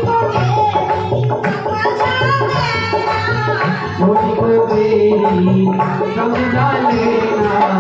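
Live Hindi devotional folk song: a woman singing over hand drums and a keyboard.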